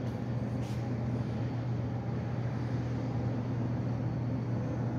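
Steady low hum of indoor machinery, unchanging in pitch and level, over a faint even background hiss.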